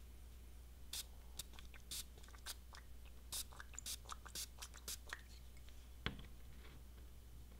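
A series of short, faint spritzes from a finger-pump spray bottle of solvent-based poly prep misting silicone rubber pieces, then a soft knock as the bottle is set down on the wooden table.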